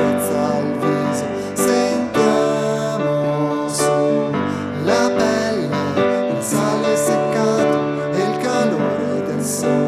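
Instrumental passage of a folk song: chords and a melody line over a steady low bass note, with short percussive strikes now and then.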